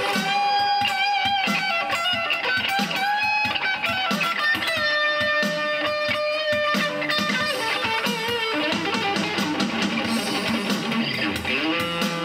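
Slow shuffle played on electric guitar: lead riffs with long held notes that waver in pitch, over a steady shuffle pulse.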